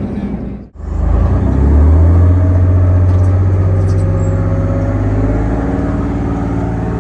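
Chieftain tank's Leyland L60 two-stroke opposed-piston multi-fuel engine running steadily. There is a brief drop in the sound under a second in, after which the engine comes back louder.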